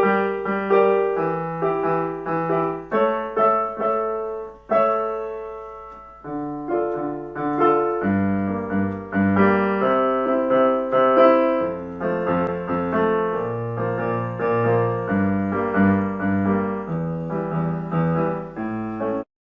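Piano music: a slow run of struck notes and chords that cuts off suddenly near the end.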